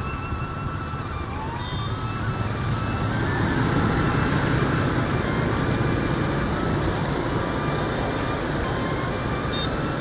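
A crowd of scooters and motorbikes pulling away from a traffic light, the engine and road noise swelling about three seconds in and staying up as the traffic moves off. A thin background melody plays over it.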